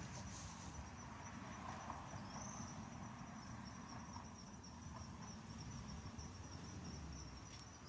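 Faint, steady high-pitched insect trill, wavering slightly, over a low outdoor rumble.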